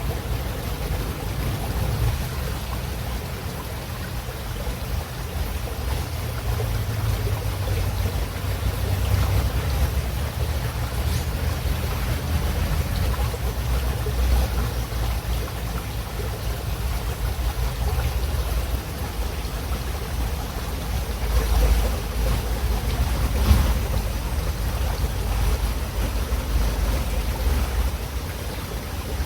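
Running river water: a steady rush with a deep low rumble underneath.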